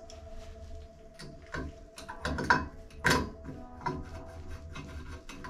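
Irregular small metal clicks and ticks as a new chrome handle is worked onto the valve stem of a Gerber three-handle tub/shower valve, the loudest a few sharp clicks near the middle.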